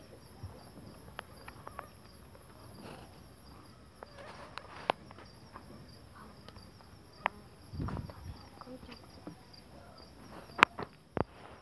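Night insects, crickets, chirping steadily. Scattered sharp clicks and knocks sound over them, with a short low rumble about eight seconds in and the loudest clicks near the end.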